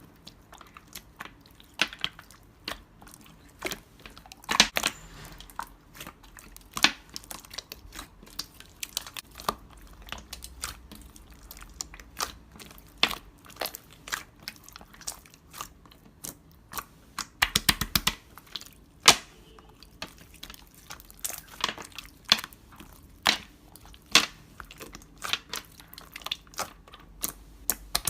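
Slime being squeezed, stretched and poked by hand, giving a steady run of sharp wet clicks and pops at an irregular pace.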